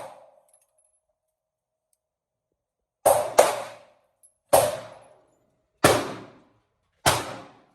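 Five shots from a Glock pistol, each with a short echoing tail. They start about three seconds in: a quick pair a third of a second apart, then three more about a second and a quarter apart.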